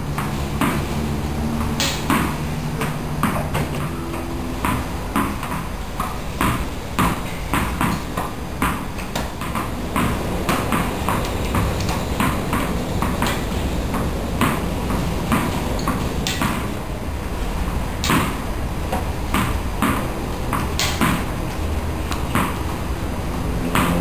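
A tennis ball knocked back and forth with a racket, bouncing off a wall and a hard tiled floor: a long run of sharp knocks, roughly one to two a second and unevenly spaced.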